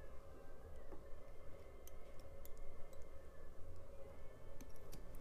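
Faint, scattered clicks from hands and small fly-tying tools at the vise, over a low steady hum. The clicks come singly, a couple about two seconds in and a cluster near the end.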